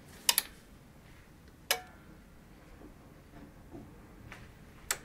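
A few sharp clicks as a variable frequency drive is switched on: a double click about a third of a second in, a single click with a brief ring near two seconds, and another near the end. The drive fails to come on properly.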